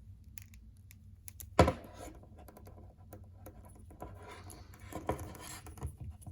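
Small plastic clicks and light scraping as a 6-inch action figure's handheld radar-dish accessory is handled and fitted into the figure's hand, with one sharp click about a second and a half in.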